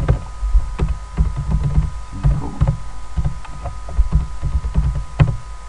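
Keystrokes on a computer keyboard, a run of irregular sharp clicks, over a low rumble and a steady electrical hum on the microphone.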